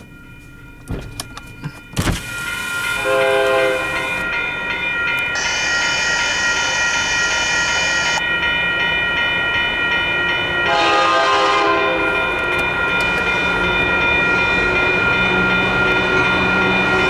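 Freight locomotive horn sounding two blasts, one about three seconds in and a longer one about eleven seconds in, as the train approaches a grade crossing. A steady ringing of the crossing's warning bell and the building rumble of the oncoming train run under the horn.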